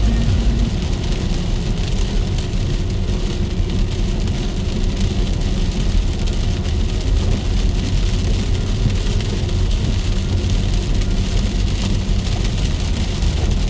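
Heavy rain falling steadily: an even hiss with a deep rumble underneath.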